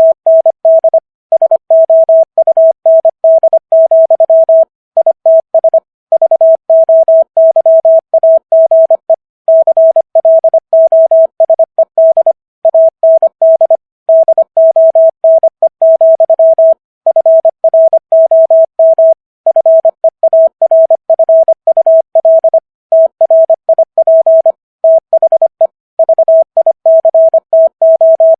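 Morse code sent at 25 words per minute as a single steady beep tone, keyed on and off in quick dits and dahs, with short pauses between words. It spells out the text of Walt Whitman's poem 'O Captain! My Captain!'.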